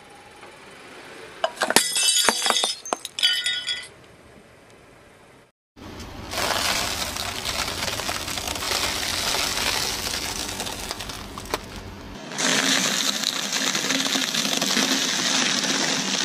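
A car tyre rolling over Kinder Surprise eggs on a paper plate, the chocolate shells and plastic capsules cracking in a quick cluster of sharp snaps for about two seconds. After a short gap, a car tyre slowly crushes plastic-wrapped round crackers: a long, dense crunching and crinkling that grows louder and brighter about twelve seconds in.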